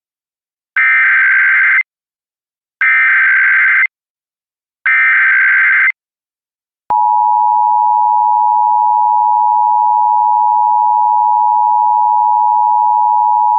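Emergency Alert System SAME header: three one-second bursts of buzzy data tones about a second apart, encoding a Child Abduction Emergency (AMBER Alert). About seven seconds in, the steady two-tone EAS attention signal starts and holds.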